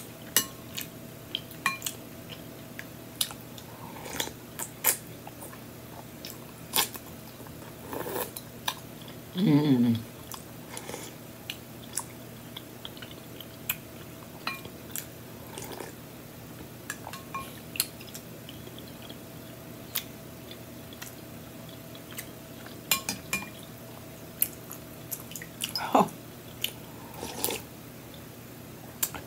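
Eating sounds: a spoon clinking and scraping in a glass bowl of celery and carrot soup, scattered sharp taps and chewing, and a hummed "mm" with a falling pitch about ten seconds in.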